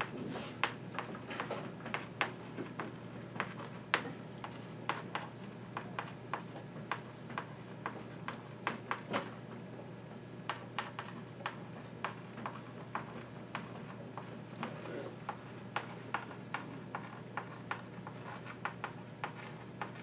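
Chalk writing on a blackboard: irregular sharp taps and short scratches as letters are written, several in quick runs with brief pauses between words, over a steady low hum.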